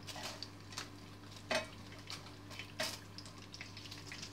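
Light kitchen handling noises as spring onions are laid in an empty frying pan: scattered soft clicks and rustles, with two sharper knocks about a second and a half in and again near three seconds.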